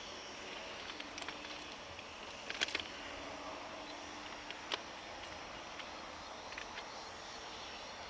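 Faint outdoor ambience: a steady high-pitched insect buzz, broken by a few sharp clicks about two and a half seconds in and again near the middle, with the departing train only distant.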